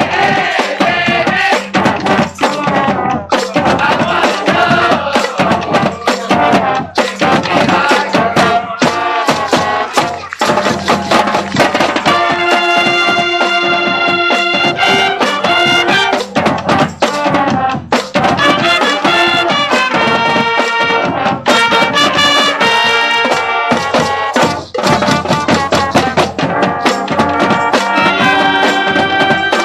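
High school marching band playing a stands tune: brass, saxophones and sousaphones over a drumline with bass drums. Long held chords sound about halfway through and again near the end.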